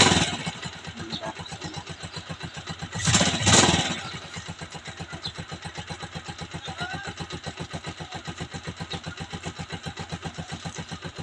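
Honda TMX 125 Alpha's single-cylinder four-stroke engine running with an even, rapid putt-putt, freshly started cold without the choke. Two brief loud surges in engine sound, one right at the start and one about three seconds in, then it settles to a steady idle.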